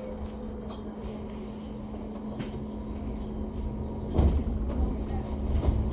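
Cabin noise of a moving double-decker bus: a steady drivetrain hum over road rumble, with small rattles. A louder jolt of rumbling and clatter comes about four seconds in.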